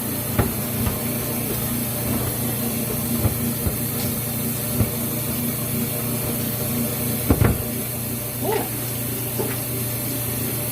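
Water running steadily from a kitchen tap, with a few light knocks and clinks, the loudest about seven seconds in.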